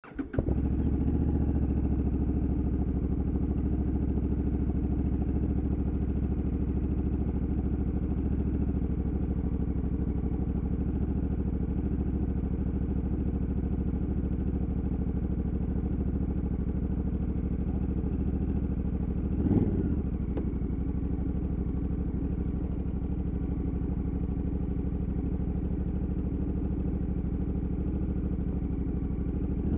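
Honda Africa Twin 1100 DCT motorcycle's parallel-twin engine running steadily. There is a brief louder swell about two-thirds of the way through.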